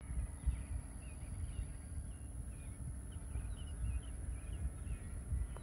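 Small birds chirping over and over with short, high chirps, over an uneven low rumble and a steady high-pitched whine.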